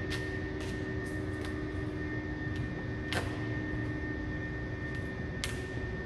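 Vinyl wrap film on a car's trunk lid crackling in a few sharp, short snaps as it is pulled and lifted by hand, the loudest about three seconds in and near the end. Under it runs a steady low drone with a constant hum.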